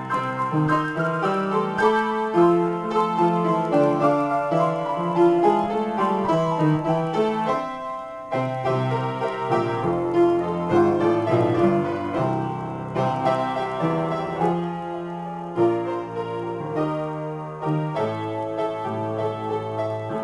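Solo piano being improvised, chords and melody played continuously, with a brief softer lull about eight seconds in.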